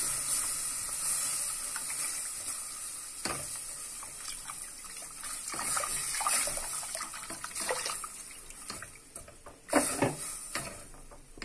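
Cold milk poured into a hot butter-and-flour roux in an aluminium pot and stirred with a spatula: a sizzling hiss that dies away as the milk cools the pan, with liquid sloshing and the spatula scraping the pot, and one louder knock of it near the end.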